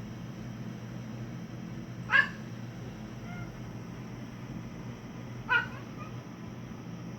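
A cat giving two short, sharp, unusual yelp-like cries about three seconds apart, the odd noises a cat makes to get out of a fight with another cat. A steady hiss runs underneath.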